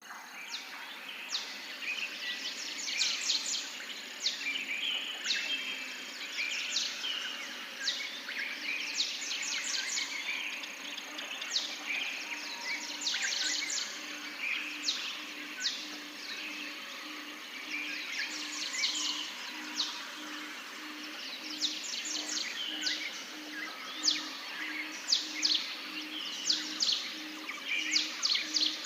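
Small birds chirping in repeated bursts of quick, high chirps and trills. A faint low pulsing tone, about two pulses a second, runs underneath from about halfway through.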